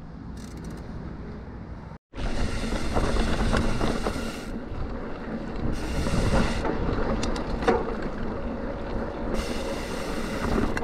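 Mountain bike riding a dirt trail: wind rushing over the microphone, with tyre noise and the bike rattling over the ground. It comes in loudly after a quieter stretch and a brief drop-out about two seconds in.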